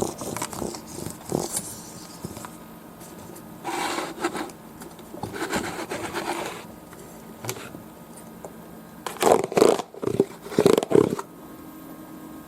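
Bursts of scraping and rubbing from objects being handled, with a cluster of sharp knocks and scrapes near the end.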